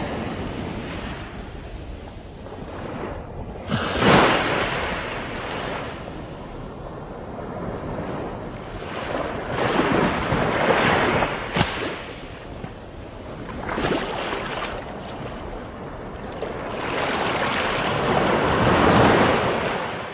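Ocean surf: waves breaking and washing in, swelling and easing several times, with the strongest surges about four seconds in, around the middle, and near the end.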